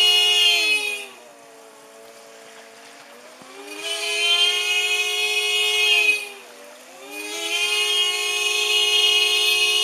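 Car horn sounding on its own, a steady blare. Twice its pitch sags and it fades almost away, then it swells back up to full strength.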